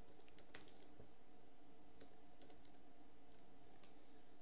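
Faint, irregular keystrokes on a laptop keyboard as text is typed, over a steady low hum.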